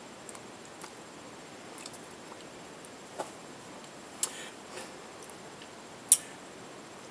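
Hands tapping and brushing against each other and the body while signing in American Sign Language: scattered short taps, three louder ones, the loudest about six seconds in, over a steady hiss.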